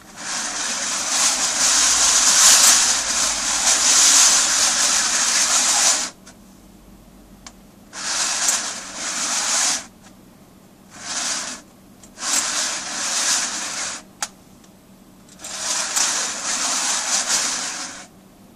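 Coins being slid around on the metal lid of a tin coin bank: a scraping hiss in five stretches, a long one of about six seconds and then four shorter ones with quiet gaps between.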